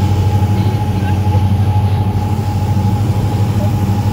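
Diamond DA42 Twin Star's twin engines and propellers droning steadily, heard inside the cockpit as the plane descends on approach: a strong low hum with a thin steady whine above it.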